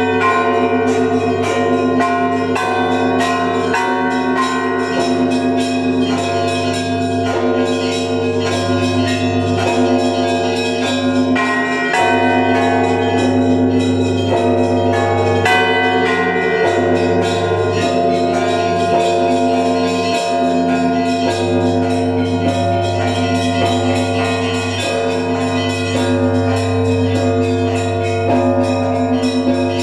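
Russian Orthodox church bells rung together: many smaller bells struck in a quick, dense rhythm over the continuous low hum of the large bells.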